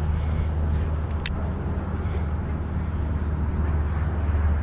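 Wind buffeting the microphone: a steady low rumble with a hiss over it, and a single sharp click about a second in.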